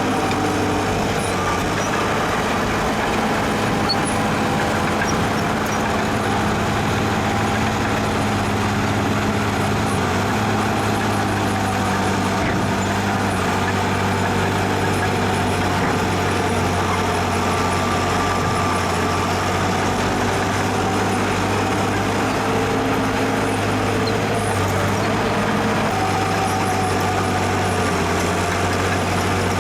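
Heavy diesel engine of earthmoving machinery running steadily at a constant note, with faint higher tones coming and going.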